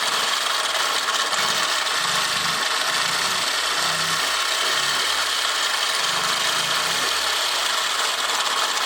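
Honda Press Cub 50's fuel-injected 49 cc single-cylinder four-stroke engine running with a steady mechanical noise, which the seller lists as abnormal engine noise.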